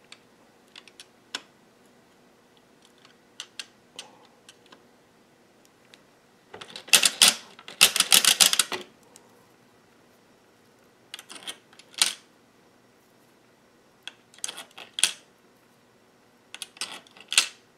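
3D-printed circular sock knitting machine being cranked: its needles clatter through the cam in rapid bursts of clicks, the longest and loudest about seven seconds in, then three shorter bursts, as the first rows knit onto the cast-on. A few light single clicks come before.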